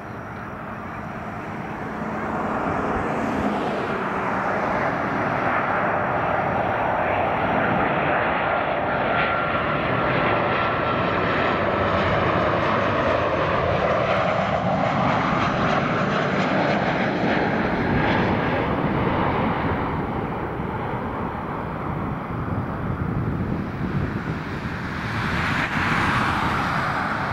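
Boeing 737-700 jet on final approach passing close overhead, its CFM56 turbofan engines giving a sustained roar that builds over the first couple of seconds, with a faint high whine in the middle. Near the end a car passes close by.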